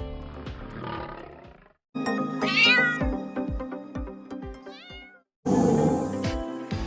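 A domestic cat meowing twice, a longer call then a shorter falling one, over background music with a steady beat. The track drops to silence briefly between pieces.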